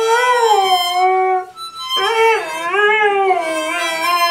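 A husky-type dog howls along to a harmonica in long notes that slide up and down in pitch. The sound breaks off briefly about a second and a half in, then the howling and harmonica start again.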